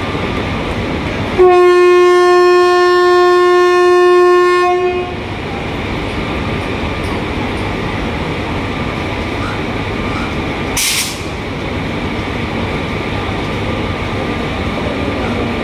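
Electric locomotive horn sounding one long, loud blast of about three and a half seconds, starting a little over a second in. After it comes the steady rumble of the train moving off, with a short sharp hiss later on.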